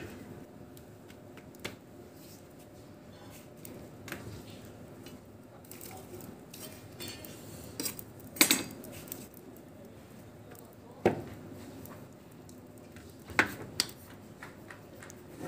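Metal cookware clinking and knocking now and then as aloo parathas are shaped in a metal dough dish and turned on a tawa over a wood fire: a handful of sharp knocks over a low steady background, the loudest about eight seconds in.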